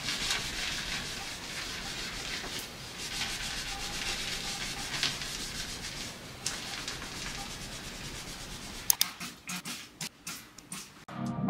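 A cloth scrubbing a bathroom vanity countertop with a steady rubbing scratch. Near the end come a few sharp squirts from a trigger spray bottle.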